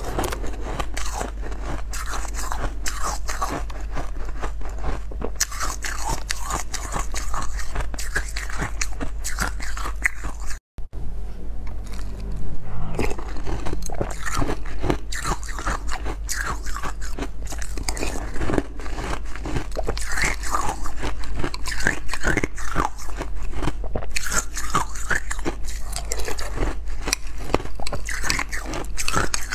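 Close-miked crunching and chewing of ice: bites into a frosted ice block, then spoonfuls of crushed ice crunched between the teeth, in a dense, irregular run of crunches that breaks off for a moment about eleven seconds in.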